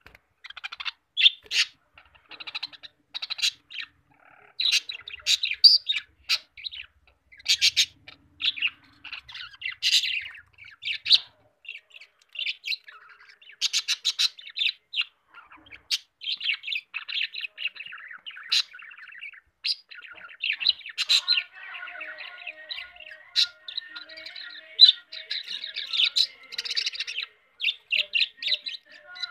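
Budgerigars chirping and chattering: a busy run of short, sharp chirps, joined about twenty seconds in by a continuous warbling chatter.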